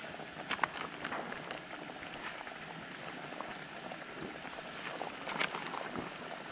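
Flour-dredged trout fillets sizzling and bubbling in hot deep-frying oil as they are dropped in, with a steady fizz and scattered sharp spits and pops.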